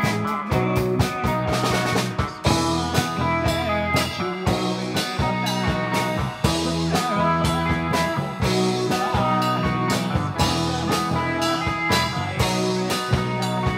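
Live rock band playing: drum kit, electric bass and electric guitars, with a male singer at the microphone.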